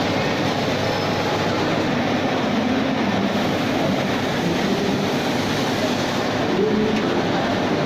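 Large-format digital printing machine running with a steady mechanical whir and hum.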